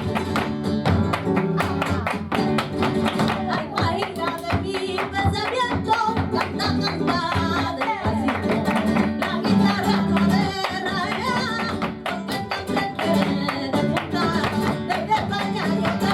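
Live flamenco guajira: guitar with a singer's wavering vocal line over dense, sharp rhythmic strokes.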